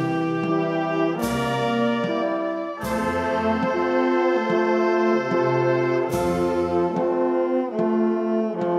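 Brass band playing a slow march in held chords, with percussion strikes about a second in, near three seconds and about six seconds in.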